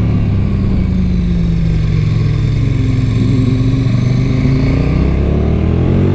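KTM 1290 Super Duke R's V-twin through its stock exhaust, heard from onboard while riding. The revs ease down for the first few seconds, then climb again as the throttle is opened.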